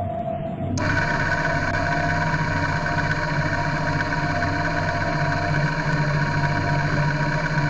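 Thunder Tiger RC model submarine's electric motors running, heard from inside the hull through a camera sealed within it: a steady whine of several held tones over a low hum and hiss. It starts abruptly about a second in.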